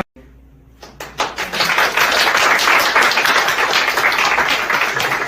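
A room of people clapping and applauding, starting about a second in after a brief silence and carrying on steadily.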